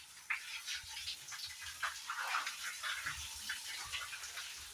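Pigs snuffling and moving about in a pen: irregular soft scrapes, clicks and snorts with a few dull low thuds.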